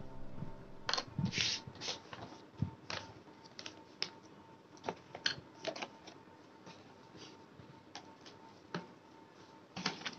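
Paper and stationery being handled on a desk: irregular rustles of notebook pages being lifted and moved, with light taps and clicks in between.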